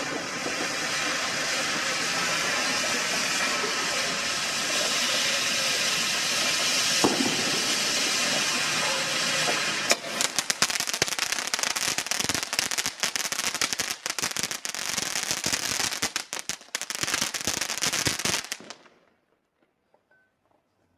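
'Short Stack' ground fountain firework spraying sparks with a loud, steady hiss. About ten seconds in it turns to rapid crackling, which stops suddenly as the fountain burns out near the end.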